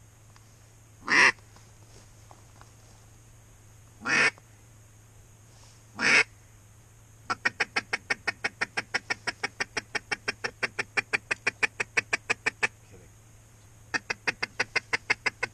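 Hand-blown duck call quacking: three long single quacks a few seconds apart, then a long fast run of short quacks, about eight a second, and a second shorter run near the end.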